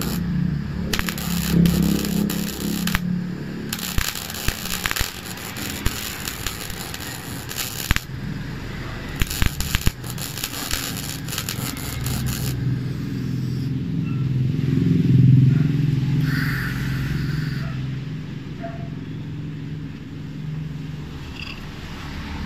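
Mailtank MIG 200A CO2/MIG welder arc crackling as wire is fed into steel, in several runs with short breaks, stopping about halfway through. After that a low rumble of passing road traffic rises and falls, loudest around 15 seconds in.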